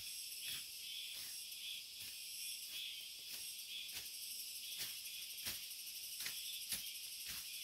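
Steady high chorus of insects in the forest, with sharp short swishes or snaps about every half second to a second as undergrowth is slashed with a hand blade.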